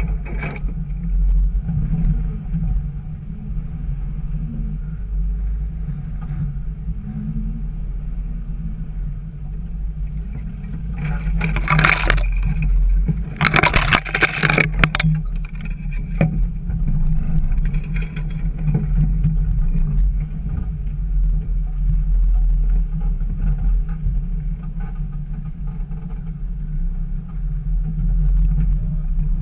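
Jeep Wrangler TJ's engine running steadily at crawling speed, a low drone. About twelve seconds in, dry brush scrapes and scratches along the body for a few seconds.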